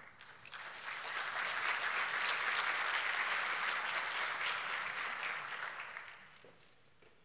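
Audience applauding: the clapping swells over about a second, holds steady, then dies away near the end.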